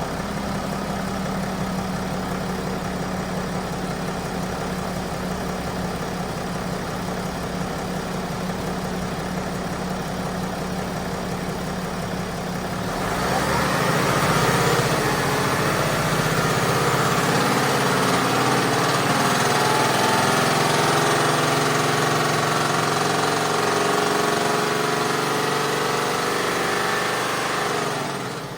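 BMW X5 40d's three-litre straight-six diesel running with the suspect noise that turned out to be a failed crankshaft bearing. It gets louder about halfway through and stays so until just before the end.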